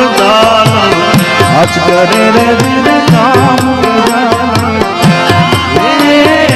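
Instrumental Indian music: a melody line that bends and wavers in pitch over quick, steady hand-drum beats.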